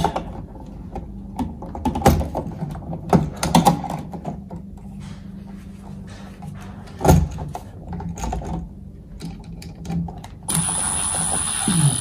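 Scattered light clicks and knocks of wires and a wall switch being handled, then near the end a cordless drill runs steadily with a high whine for a couple of seconds, driving a terminal screw on the switch.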